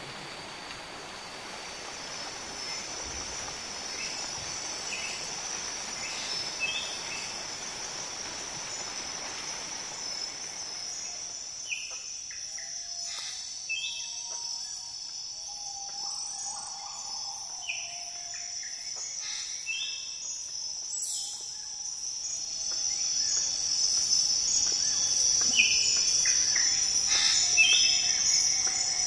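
Tropical rainforest ambience: a steady, high-pitched insect drone that grows louder in the last few seconds, with scattered short bird chirps and calls. A soft hiss fills roughly the first third.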